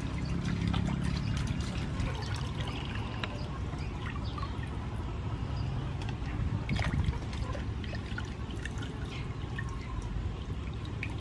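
Water sloshing, splashing and dripping in a metal basin as raw oxtail pieces are rubbed and lifted out by hand to wash them, with a louder splash about seven seconds in.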